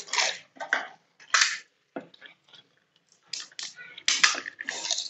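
Pani puri being eaten fast: a run of short, irregular crunches of the crisp fried shells and wet mouth noises from the water filling.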